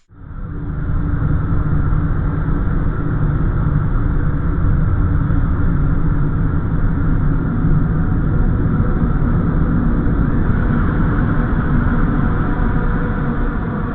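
A steady, dense low rumble with a few faint humming tones in it. It swells up from silence within about a second, holds, and eases slightly near the end.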